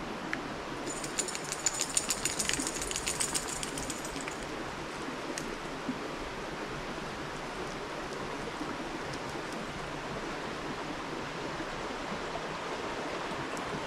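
Steady rushing outdoor background noise in woodland, with a patch of fast, high-pitched clicking from about a second in that lasts roughly three seconds.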